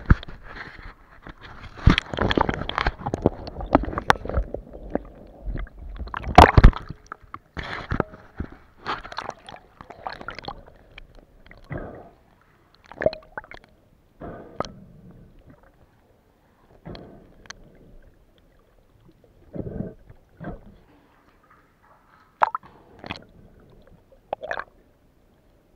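Water sloshing, splashing and gurgling in irregular bursts with sharp knocks, busy for the first several seconds and then coming every second or two.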